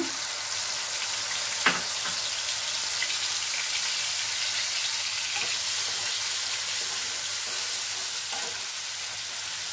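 Hot oil sizzling steadily in a frying pan around freshly added poppy-seed paste and tomato pieces, with one sharp click a little under two seconds in. Near the end a spatula stirs the mixture in the pan.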